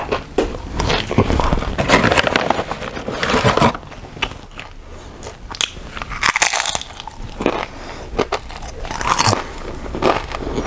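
Tortilla chips being bitten and chewed with loud, irregular crunches. The crunching thins out for a couple of seconds in the middle, then picks up again.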